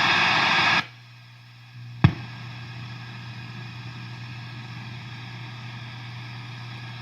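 Brand-new Marshall DSL 40C guitar amp making loud static hiss, the fault the owner complains of, which cuts off abruptly under a second in. A sharp pop comes about two seconds in, then the amp sits with a steady low hum and faint hiss.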